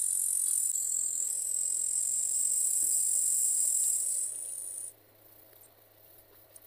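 Bush-cricket (katydid) stridulation: a loud, continuous high-pitched buzz that weakens about four seconds in and stops about a second later. Faint scratchy clicks follow.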